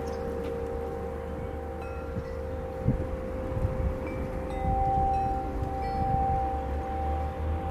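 Soft bell-like chime tones: a couple of held notes, the higher one swelling about halfway through, with short higher pings scattered among them, over a low wind rumble on the microphone.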